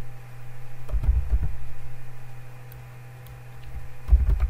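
Computer keyboard keys being typed in two short spells, the keystrokes coming through mostly as low thumps with faint clicks, over a steady electrical hum.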